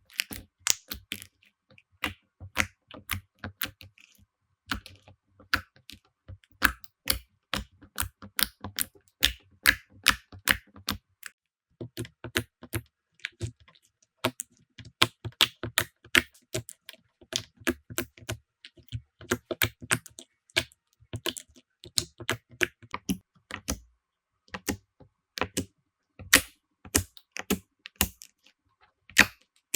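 Slime being squeezed and poked by hand, giving a rapid, irregular run of sharp sticky clicks and pops.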